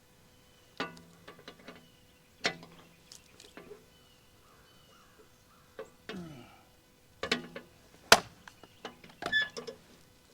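Hand tools and metal parts clanking on a Case 550G bulldozer as it is opened up to find a hydraulic leak: a scattering of sharp knocks, some with a brief metallic ring, the loudest about eight seconds in.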